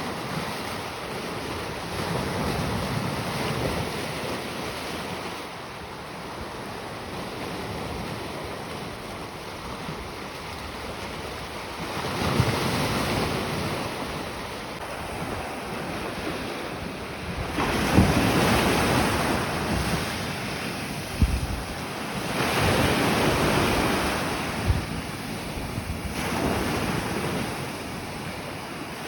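Sea surf: waves rushing in and breaking in surges every few seconds over a steady wash, with wind rumbling on the microphone and a few short knocks.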